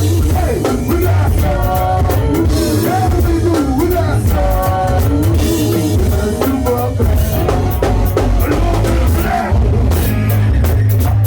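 Go-go band music: drum kit and percussion over a steady bass line, with singing.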